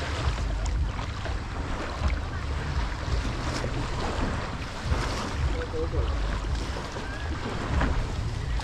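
Boat under way on the sea: wind buffeting the microphone in an uneven low rumble over the rush of water.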